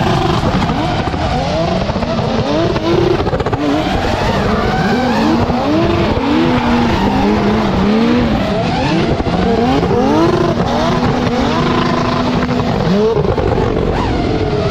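Engines of two drift cars, one a BMW, revving up and down in quick, repeated swoops that overlap one another, over steady tyre noise from the sliding cars.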